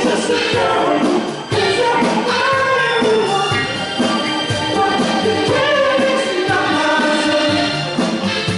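A live soul band playing while a male vocal group sings in harmony, Motown style.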